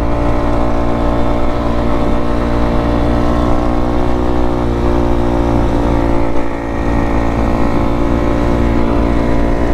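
2020 Kawasaki KX250F's fuel-injected single-cylinder four-stroke engine running under a rider at a steady, held speed, its note barely changing in pitch, with a brief drop in level about six and a half seconds in.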